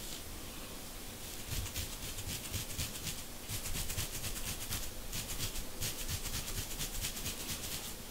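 Rapid scratching strokes on a dandruff-flaked scalp through short coily hair, loosening the flakes. The strokes come in quick runs of about nine a second, one from about a second in to about five seconds, another around six to seven seconds.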